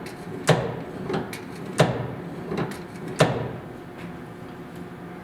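Delta 16 1/2-inch drill press quill being pulled down and let back up by its newly fitted return spring, knocking against its stop three times about a second and a half apart, with lighter clicks in between. The spring's recoil is not too stiff.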